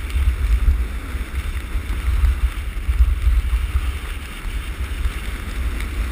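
Wind rushing over the microphone of a skier's camera on the way downhill, a gusty low rumble, with a steady hiss of skis sliding on snow.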